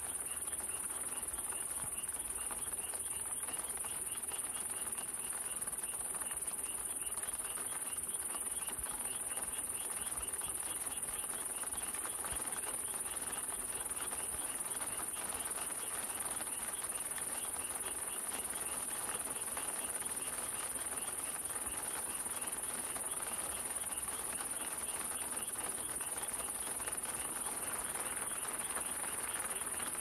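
Steady rain in a forest with a continuous high-pitched insect trill over it, unchanging throughout.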